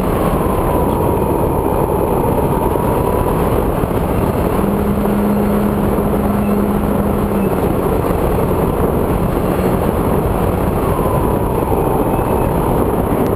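Air rushing over a camera mounted on a Multiplex EasyStar radio-controlled foam plane in low flight, with a faint electric motor whine that slides down in pitch over the first few seconds and again near the end.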